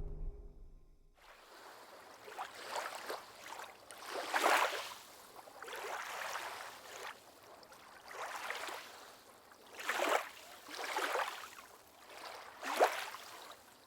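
Water lapping and sloshing in repeated soft swells, about one every second or two, with the end of background music fading out at the start.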